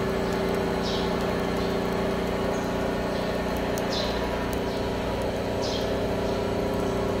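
Commercial rice-cracker frying machine running with a steady motor hum, with a few brief high chirps over it about one, four and six seconds in.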